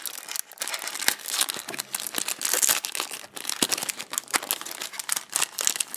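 Foil-lined trading-card booster pack crinkling as fingers tear it open: a dense, irregular run of crackles and small tearing sounds.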